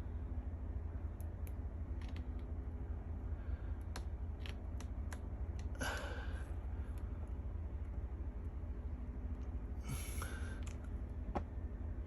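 Scattered light clicks and two short rustles of small-scale hand work on a plastic wiring plug and its metal pins, over a steady low hum.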